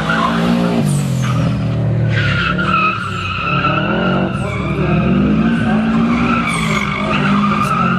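First-generation Subaru Impreza's flat-four engine revving hard, then a long tyre squeal for about five seconds as the car slides through a tight turn, with the engine note rising and falling under it.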